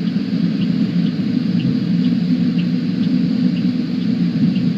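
Steady low vehicle rumble, with faint short ticks about twice a second.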